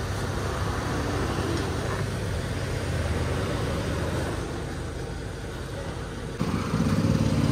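A steady low engine or motor hum at a fuel pump, which grows louder for about a second near the end.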